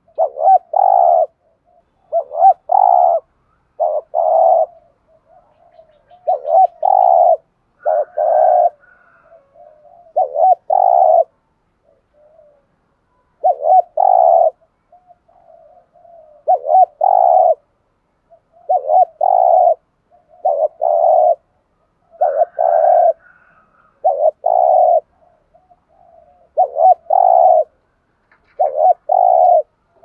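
Spotted dove (cu gáy) cooing in the rapid 'thúc gù' style, short phrases of a few quick coos repeated about every one and a half to two seconds, with soft quieter notes between.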